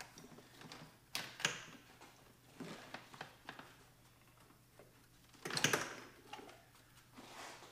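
Hands working a part free in a car's engine bay with the engine off: scattered clicks and knocks of plastic and metal parts, with the loudest clatter about five and a half seconds in.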